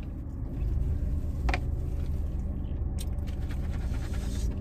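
Steady low hum inside a car, with two short clicks about a second and a half apart.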